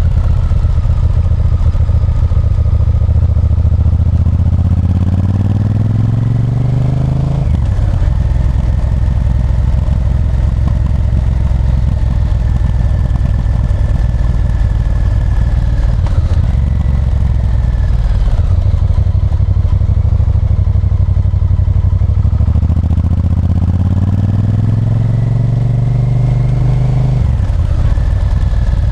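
Honda Varadero 1000's 90-degree V-twin engine under way. Revs climb for several seconds and drop sharply at an upshift about seven seconds in, hold roughly steady, then climb again and drop at another upshift near the end.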